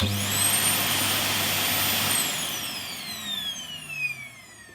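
Henry vacuum cleaner fitted with a Dyson DC40 motor, switched on: a very high whine rises almost instantly, runs steady for about two seconds, then the motor is switched off and the whine falls in pitch as it spins down.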